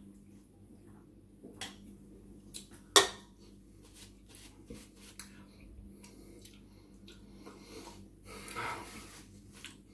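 An aluminium drinks can is set down with one sharp clack on the table worktop about three seconds in, among small clicks of handling. Near the end comes a short rustle of a paper napkin as hands are wiped.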